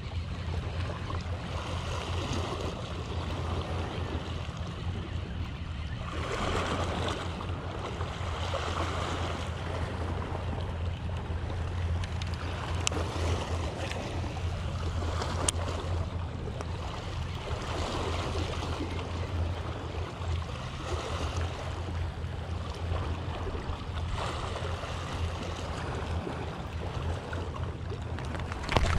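Small waves washing against a rocky seawall, swelling and ebbing every few seconds over a steady low rumble.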